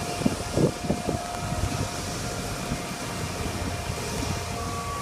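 Heavy machinery running on a building site: a steady engine drone with a faint steady whine, and a few low thumps in the first second.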